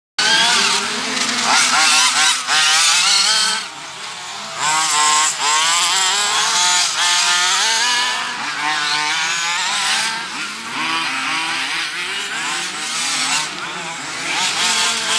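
Small two-stroke engines of radio-controlled off-road buggies racing, several at once, their high-pitched note rising and falling continually as they rev up and back off through the track's corners.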